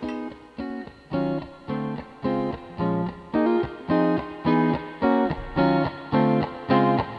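Background music: a plucked guitar playing a steady run of single notes and chords, about two a second.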